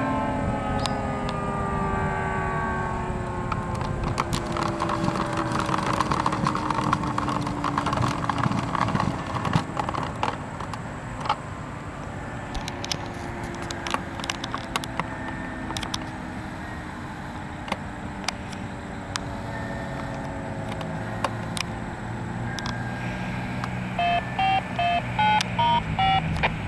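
Rotating outdoor warning siren winding down at the end of its test, its falling pitch fading out over about twenty seconds, with scattered sharp clicks. Near the end comes a quick string of touch-tone (DTMF) beeps from a radio: the siren activation code coming through after the test.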